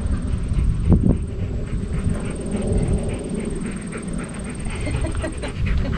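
English Labrador panting in quick, short breaths, over a steady low rumble of wind on the microphone, with a brief knock about a second in.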